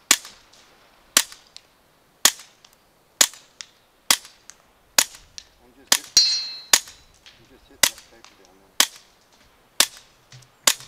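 Suppressed Taurus TX22 .22 LR pistol with a Griffin Optimus Micro silencer firing standard-velocity rounds. About a dozen sharp cracks come roughly one a second, each followed by a faint tick. The shots are really quiet.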